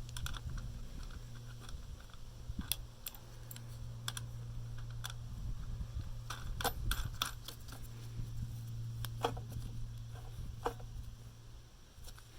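Scattered light clicks and taps of hands fitting the air filter and its cover back onto a Generac pressure washer engine, over a steady low hum.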